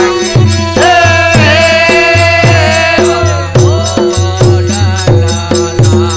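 Indian folk music between sung verses: harmonium playing a melody that holds one long note for about two seconds, over a dholak beat of about three strokes a second with bright percussion on each beat.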